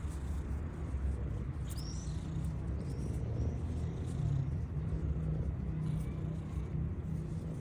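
Steady low rumble of distant traffic, with a few faint high chirps about two to three and a half seconds in.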